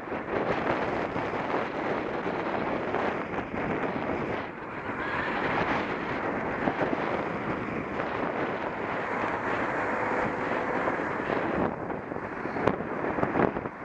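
Wind buffeting the microphone of a camera mounted on a moving bicycle, a steady rushing noise, with a couple of sharp clicks near the end.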